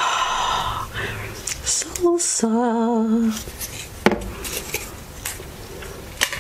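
A small plastic salsa cup handled close to the microphone, with plastic rustling at first. About four seconds in it is set down on a wooden table with a sharp knock, and there is another tap near the end.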